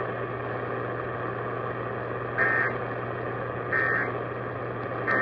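Emergency Alert System end-of-message data bursts: three short, identical burst-tone squawks about 1.3 seconds apart, starting about two and a half seconds in, that mark the end of the alert. Beneath them is steady radio hiss with a low hum.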